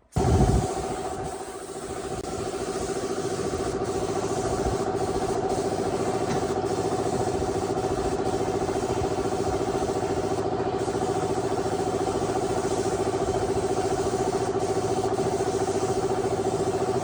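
A motor starts abruptly and runs at a steady speed for the rest of the time, with a constant hum.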